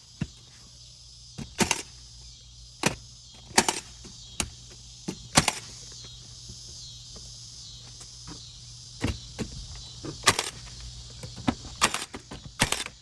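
Nails being driven to fasten garage door weatherstripping to the door frame: about eight sharp knocks at irregular intervals, with a pause of a few seconds in the middle.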